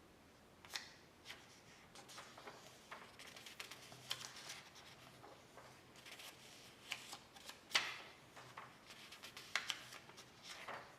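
Faint, irregular light clicks and rustling, like small objects being handled, with a sharper click about eight seconds in.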